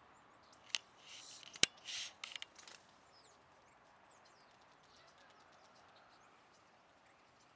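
Faint outdoor ambience with scattered small bird chirps. Two sharp clicks and a few short rustling bursts come between about one and three seconds in.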